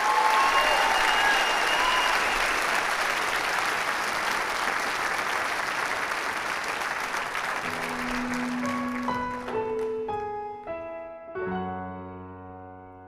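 Audience applauding loudly, the applause dying away over the first ten seconds or so. A slow piano piece begins about eight seconds in and is left playing alone near the end.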